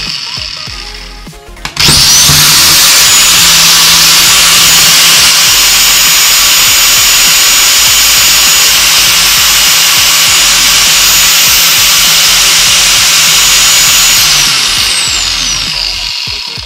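Angle grinder with a fidget spinner mounted on its spindle in place of a cutting disc, switched on about two seconds in and running at full speed with a steady high-pitched whine. About two seconds before the end it is switched off and winds down, the whine falling in pitch.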